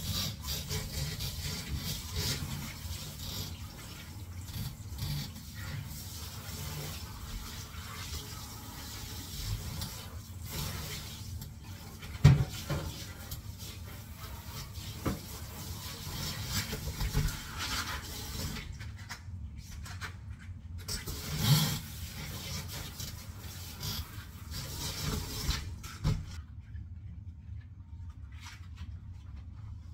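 Tap water running into a sink while dishes are hand-washed, with scattered clinks and knocks of dishware, one sharp knock standing out. The water shuts off near the end, leaving only faint handling clicks.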